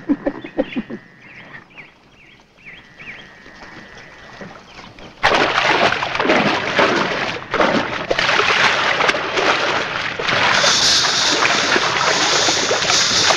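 Birds chirping for the first few seconds. About five seconds in, loud splashing breaks out suddenly and keeps going as a snared animal thrashes in shallow water.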